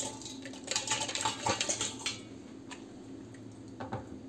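Crushed red grapes and their juice being poured from a container into a glass wine bottle: wet sloshing and plopping with sharp knocks and clinks against the glass, busiest in the first two seconds and then thinning out.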